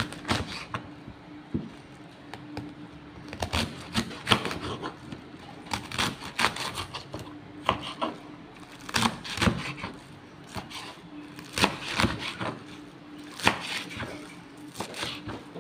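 Kitchen knife slicing through a head of napa cabbage on a wooden cutting board: irregular runs of sharp crunching cuts, each ending in a knock on the board.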